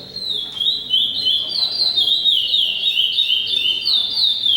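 A songbird singing a long unbroken song of quick, clear whistled notes, each sliding down in pitch, several per second.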